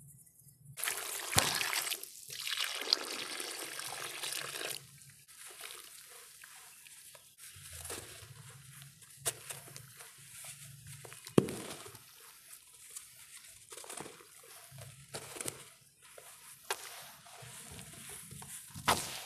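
Sand-cement mix crumbled and sifted by hand in a bucket. A dense gritty pouring hiss starts about a second in and lasts nearly four seconds. Then come scattered crackles and a few sharp crunches as clumps break apart.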